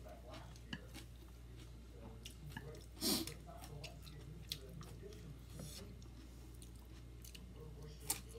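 A person chewing a mouthful of rice noodles, fried tofu and raw vegetables, with scattered soft clicks and one louder noise about three seconds in, over a steady low hum.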